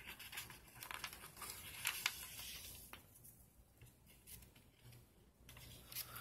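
Faint rustling and crinkling of notebook paper being handled, with a few light clicks in the first few seconds before it quiets down.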